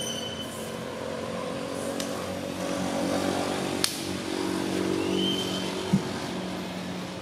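A motor vehicle's engine running, growing louder toward the middle and then fading. Two short high whistles, one near the start and one about five seconds in, and two sharp clicks come over it.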